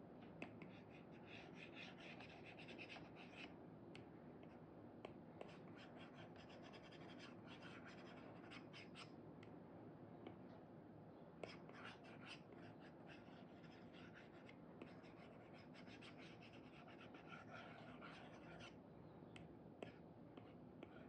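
Apple Pencil tip fitted with an Elecom nib scratching across an iPad's paper-like screen protector: faint rasping pen strokes in bursts, with a few sharp taps between them.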